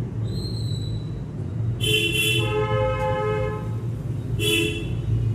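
A vehicle horn sounds twice: one long toot of about a second and a half, then a short toot near the end, over a steady low rumble.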